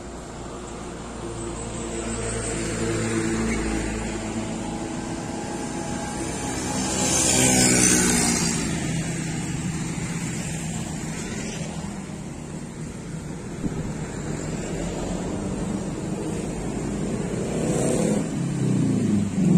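A road vehicle passing by with its engine running, growing louder to pass closest about eight seconds in, then fading.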